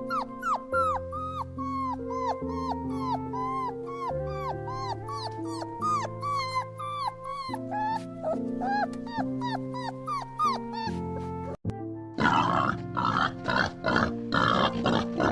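Background music: a bouncy melody of short falling notes, about three a second, over held chords. A little past twelve seconds in, a pig starts grunting in quick rough pulses over the music.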